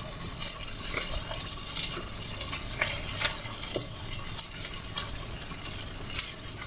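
Spatula stirring and scraping against a steel pot of boiled potatoes and chicken, with irregular clicks, over the steady hiss of the leftover cooking water bubbling away.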